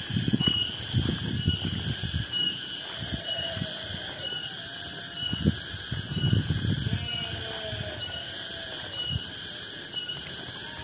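A chorus of cicadas (tonggeret) keeps up a steady, high-pitched shrill buzz that pulses in an even rhythm, with irregular low thumps and rumbles underneath.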